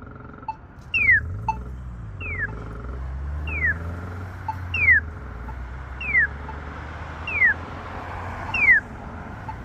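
Polara EN4 accessible pedestrian signal push button sounding its repeating chirp: seven short, loud, falling chirps about 1.2 seconds apart, with faint ticks between them.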